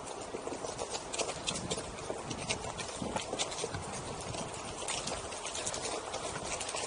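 Onewheel rolling along a dirt trail, its tire crackling over dry leaves and twigs with many irregular sharp clicks over a steady rolling noise.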